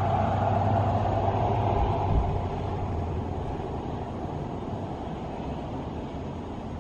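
Helicopter N314PH in flight on its approach to land, a steady engine and rotor noise. It is loudest in the first two seconds, with a brief low thump a little after two seconds, then slowly grows fainter.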